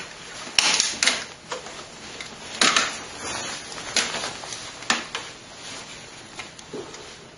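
Irregular sharp clicks and knocks of hardware being handled inside a desktop PC case, as hands work at releasing an expansion card; several close together about a second in, then single ones spaced a second or so apart.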